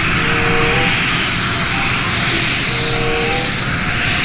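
Four turboprop engines and propellers of a Lockheed C-130 Hercules-type military transport running steadily as it flies low on approach, loud and unbroken.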